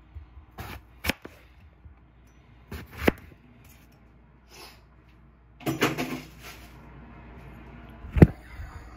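Scattered knocks and clatters of kitchen food preparation on a plastic cutting board: a few single knocks, a rattling cluster about six seconds in, and one sharp, loud knock near the end.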